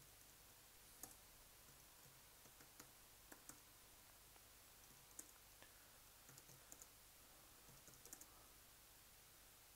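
Faint, scattered keystrokes on a computer keyboard, single taps with short quick runs about six and eight seconds in, over near-silent room tone.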